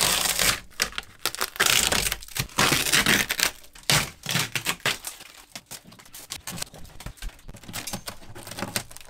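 Water-rotted wood veneer and plywood paneling being peeled and torn off a wall by hand: a dense run of crackling and snapping, thinning to scattered clicks after about four seconds.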